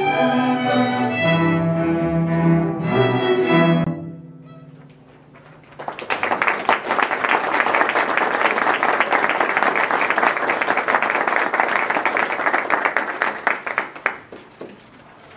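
Amateur string orchestra of violins, cellos and double basses playing the last chords of a piece, which stop about four seconds in. After a short pause the audience applauds for about eight seconds, then the clapping dies away.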